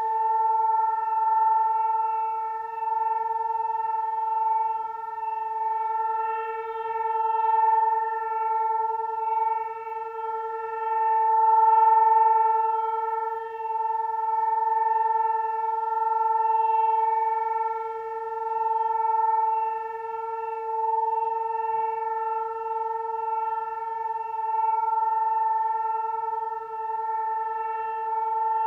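Civil-defence air-raid siren sounding one steady, unbroken tone, its loudness slowly swelling and fading. It signals an air-raid alert.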